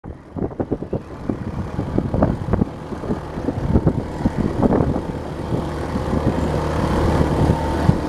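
Several small motorcycles running down a rutted dirt track, engines droning, with scattered knocks and rattles. They get somewhat louder as the riders come closer.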